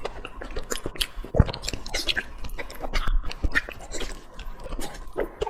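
Close-miked chewing of braised pork trotters: irregular wet, sticky mouth smacks and soft clicks as the gelatinous skin and meat are chewed, with one sharper knock about a second and a half in.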